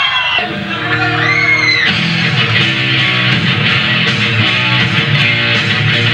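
Live thrash metal band opening a song: a held electric guitar chord rings out, then the full band with drums comes in about two seconds in and keeps playing.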